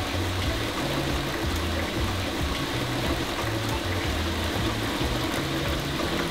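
Background music with a stepping bass line, over a steady rush of water pouring into eel holding tubs.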